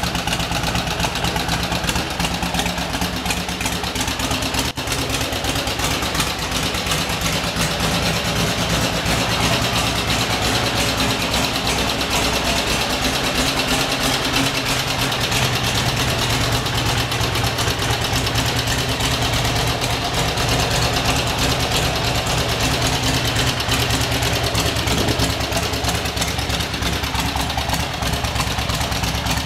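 1964 Harley-Davidson Ironhead Sportster engine, an air-cooled V-twin, running at a steady idle.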